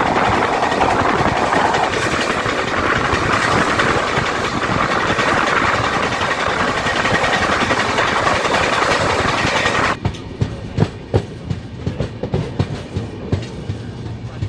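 Express passenger train running at speed: a loud, steady rush of wheel and wind noise. About ten seconds in it changes abruptly to a quieter run with the clickety-clack of the wheels knocking over the rail joints.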